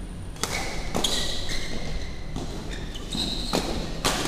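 Badminton rally: the sharp crack of rackets hitting the shuttlecock several times, with sneakers squeaking briefly on the court floor in between.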